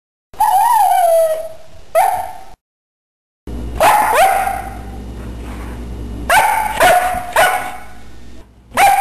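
Siberian husky "singing": a run of howls and yips in short calls that bend up and down in pitch, some rising in quick glides. The sound cuts out completely twice in the first few seconds.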